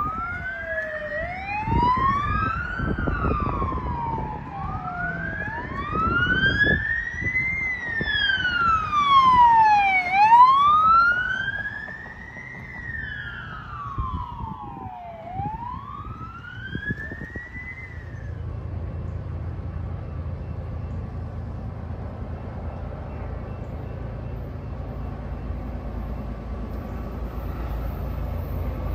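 Emergency vehicle siren in a wail pattern, its pitch rising and falling slowly, about two and a half seconds each way. At first two wails overlap, then one carries on alone and stops about two-thirds of the way through. A low steady rumble remains.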